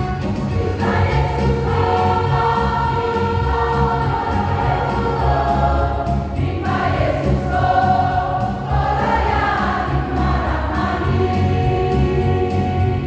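Church choir singing a Christian song, with instrumental accompaniment and a steady low bass underneath.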